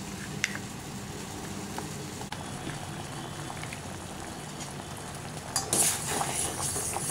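A spoon stirring barley-flour paste in a steel bowl, with a few light clinks. Then a pot of vegetables at a rolling boil: steady bubbling that swells louder and hissier about five and a half seconds in.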